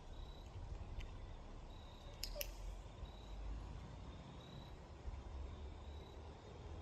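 Faint outdoor background: a low rumble with a repeated high chirp, and two sharp clicks about two seconds in.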